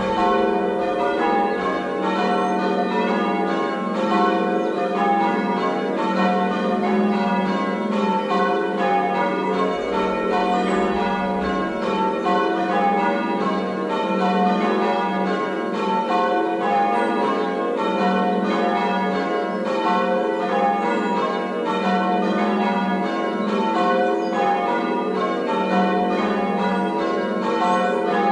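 Ring of six church bells, tenor 10–2–12 cwt in F, being change rung: the bells strike one after another in a steady, unbroken sequence, their tones overlapping as each rings on.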